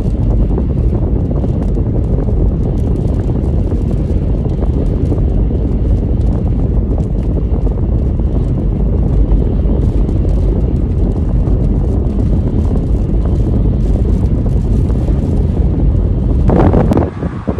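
Strong storm wind buffeting the microphone, a loud, steady low rumble of gusts.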